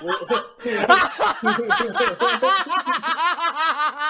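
Two men laughing: a long run of quick, rhythmic ha-ha pulses, about five a second, starting about half a second in.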